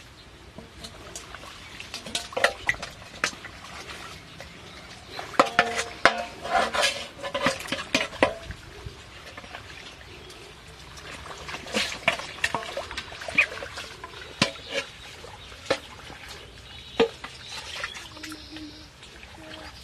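Small metal bowl scooping muddy water in a shallow ditch: splashes and pours, with clinks and scrapes of metal against a larger steel basin, in several bursts.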